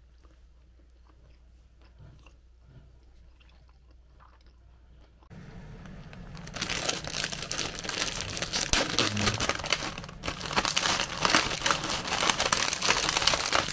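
Plastic instant-ramen packet crinkling loudly as it is handled and opened, starting about six seconds in. Before that it is quiet, with faint light clicks.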